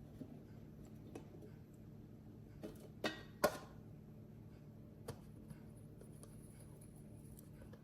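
Faint steady low hum with a few short, light clicks or knocks, the two loudest close together about three seconds in.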